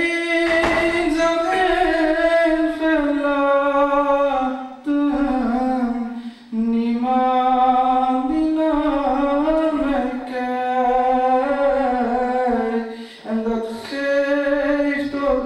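A man singing a devotional naat (a poem in praise of the Prophet) solo in Dutch, unaccompanied, in long held, gently bending phrases. He breaks off briefly for breath about three times.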